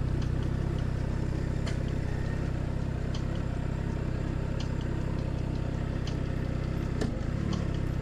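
Motorcycle engine idling steadily, a low even note with a few faint clicks over it.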